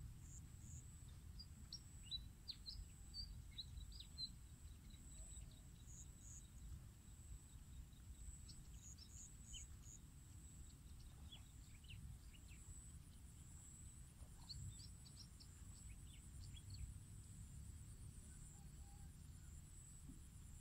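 Faint open-field ambience: scattered short bird chirps and twitters throughout, over a low rumble and a thin steady high-pitched tone.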